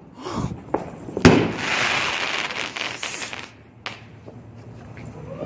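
Consumer fireworks going off: a sharp bang about a second in, then about two seconds of hissing crackle, then another sharp pop near the end.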